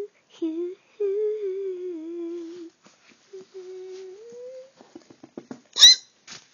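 A child's voice humming and whining in long, wavering held notes, the second one rising in pitch. Near the end come a few small clicks and a short, loud, high squeal.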